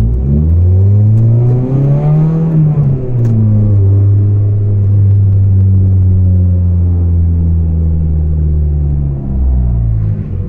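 Volvo 440 engine running loud through a broken, leaking exhaust as the car accelerates: the revs climb, fall sharply about three seconds in, as at a gear change, then build slowly again and drop near the end.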